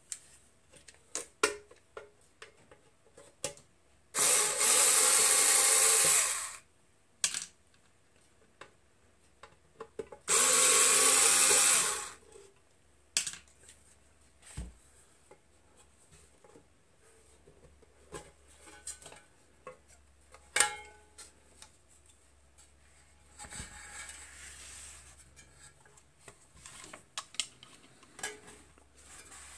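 A Skil cordless screwdriver runs in two bursts of about two seconds each, backing out the screws of a metal instrument panel. Short clicks and knocks come in between.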